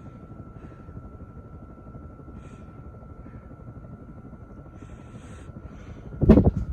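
Rebuilt 1987 Hunter Original ceiling fan running on high, a steady whoosh of moving air with a faint steady high tone; it runs freely after its shaft was raised and old gunky oil cleared out. Loud bumps near the end.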